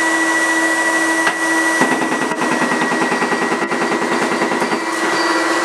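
Trotec Speedy400 CO2 laser cutter's fume filter unit running with a loud, steady whine and rush of air. About two seconds in, a fast, even rattle of roughly a dozen pulses a second from the laser cutter at work joins it for about three seconds, then stops.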